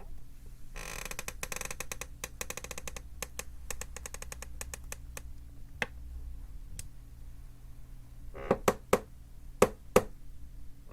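Creaky chair creaking under shifting weight: a long run of rapid creaking about a second in, a few scattered single creaks, then several sharper, louder creaks near the end.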